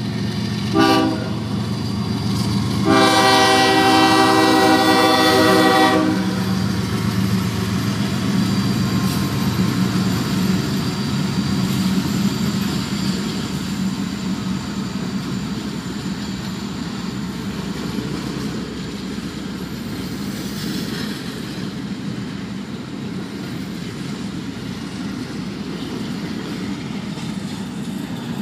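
Union Pacific intermodal train led by a GE ES44AC (AC45CCTE) locomotive sounding its horn: a short toot about a second in, then a long blast of about three seconds. After that comes the steady rumble and clatter of the container cars rolling past in heavy rain.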